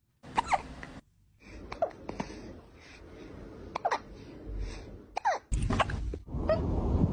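A kitten hiccuping: a string of short, sharp hiccups, about one every second or two. A low background noise grows louder over the last second and a half.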